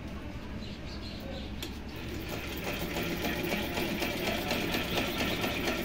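Belt-driven pico (edging) sewing machine head running with a rapid, even clatter of its links and gears, growing louder about two seconds in. The mechanism has just been oiled during a service.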